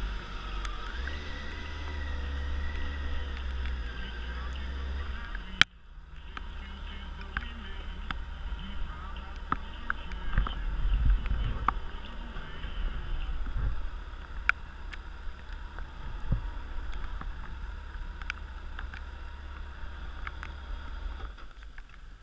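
Motorcycle engine running at low speed over wet roads, with a steady low hum, a haze of noise and scattered clicks; a sharp click comes about five and a half seconds in. The low hum cuts off near the end as the bike stops.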